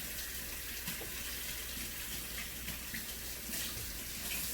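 Water running steadily from a kitchen tap, an even hiss that stops just after the end.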